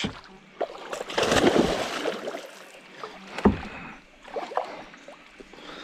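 A hooked Murray cod splashing and thrashing at the water surface beside a kayak, loudest for a couple of seconds starting about a second in. A single sharp knock comes about three and a half seconds in, with a few lighter clicks around it.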